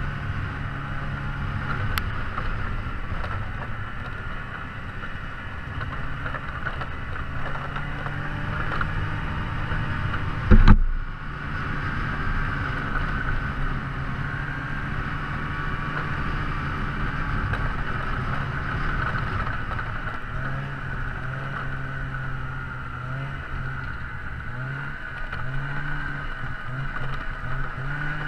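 A motor running steadily, with one loud thump about ten and a half seconds in; in the last part its low hum pulses on and off.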